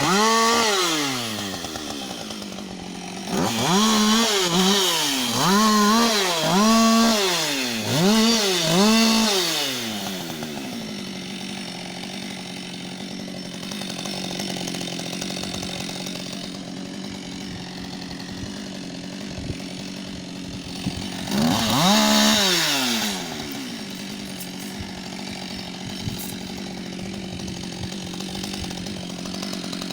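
Husqvarna 560 XP two-stroke chainsaw idling, revved in a quick run of throttle blips in the first ten seconds, each rising and falling back. It then settles to a steady idle, with one more short rev a little past the middle.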